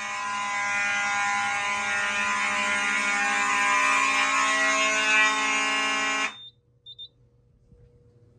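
Vintage fire alarm horn sounding a steady, continuous buzzing tone that cuts off suddenly about six seconds in. Two short, faint high beeps follow.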